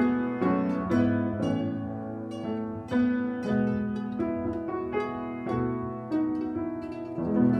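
Instrumental music closing a hymn: a gentle run of separate plucked or struck notes, each fading after it sounds.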